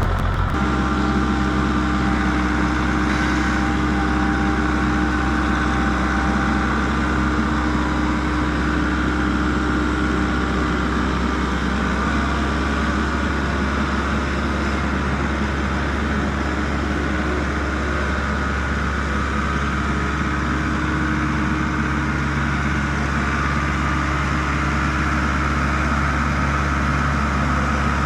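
Wood-Mizer LT15 Wide portable bandsaw mill's engine running steadily, with a low hum and small shifts in its tone midway through.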